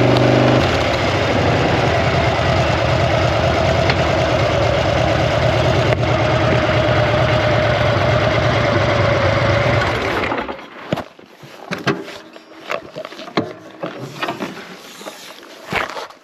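Harley-Davidson V-twin engine held at high revs during a burnout, the rear tyre spinning. About ten seconds in the engine drops away, leaving scattered short knocks and crunches.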